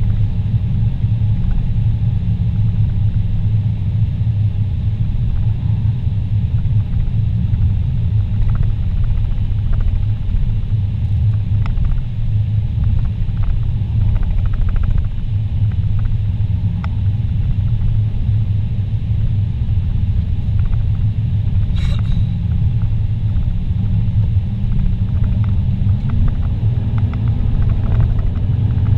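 Steady low rumble of a car's engine and tyres at highway speed, heard from inside the cabin. A single sharp tick comes about three-quarters of the way through, and a faint rising tone enters near the end.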